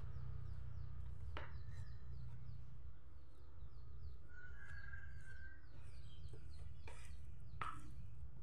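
Birds chirping faintly in quick runs over a steady low hum, with one longer call about five seconds in and a few sharp clicks.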